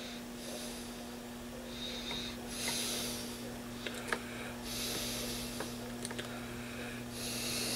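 A person breathing audibly through the nose, several slow breaths, over a steady low electrical hum. A few faint clicks come around the middle.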